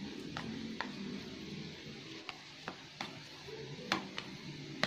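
A metal spoon pressing and spreading sticky cooked glutinous rice into an aluminium baking pan, giving light, irregular clicks as it knocks the pan, about eight in all, over a low steady hum.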